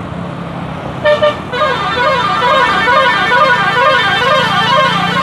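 Bus 'telolet basuri' musical horn: a short two-part blast about a second in, then a warbling tune that swings up and down in pitch over and over, about two to three times a second, over the steady hum of the bus engine.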